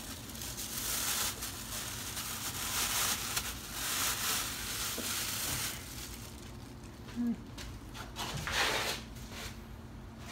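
A plastic bag crinkling and rustling as it is worked out from around an engine's oil filter, where it caught the oil from the old filter. The rustling is dense at first, then thins to a few short bursts in the second half.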